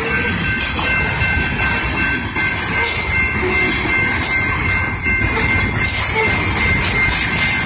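Freight train of covered hopper cars rolling past at a grade crossing, its wheels rumbling and clacking over the rails in an irregular run of clicks, with a steady high whine over it.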